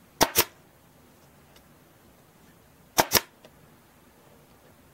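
Staple gun fired twice, about three seconds apart, each shot a sharp double snap, driving half-inch staples through cardboard.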